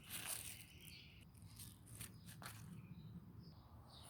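Faint rustling of freshly cut mustard green leaves being handled, with a few light clicks about halfway through.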